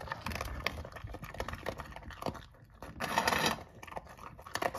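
A Pembroke Welsh corgi crunching large, hard ring-shaped dry kibble from a steel bowl: a run of irregular crunches and clicks, with a louder noisy stretch about three seconds in.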